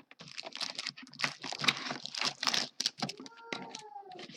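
Plastic wrapping on a trading-card hobby box crinkling and tearing as the box is opened: a rapid, uneven run of crackles.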